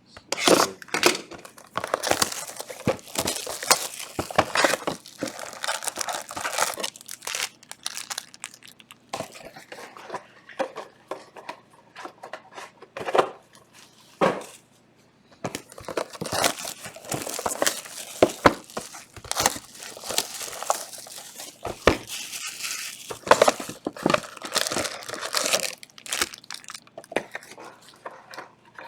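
Plastic wrap on trading-card boxes and packs being torn open and crumpled, with cardboard handled. It comes as irregular crinkling, tearing and sharp crackles in bursts with brief pauses.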